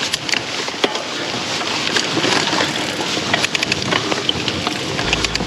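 Mountain bike riding over singletrack: tyres running over dirt, rocks and pine straw, with frequent rattling clicks and knocks from the bike and wind on the helmet camera's microphone. A steady low music bed comes in near the end.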